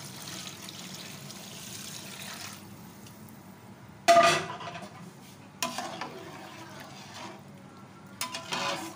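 Liquid poured from a jug into a hot pot of fried beef mince, hissing for the first two seconds or so. Then a metal slotted spatula stirs and knocks against the metal pot, with one loud knock about four seconds in, another a second and a half later, and a few quick clicks near the end.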